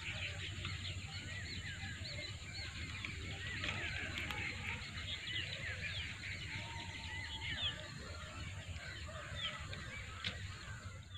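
A flock of birds calling all at once, a dense chorus of many short overlapping calls. It cuts off suddenly at the end.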